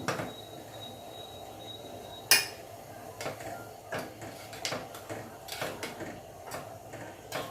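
A pot of herbal kadha decoction boiling hard on the stove: a steady low bubbling with irregular small pops, and one sharp clink of a pot or utensil a little over two seconds in.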